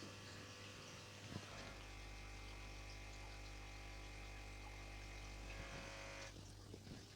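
Faint steady electrical hum with a buzzing edge. It starts just after a small click about a second and a half in and cuts off about a second before the end.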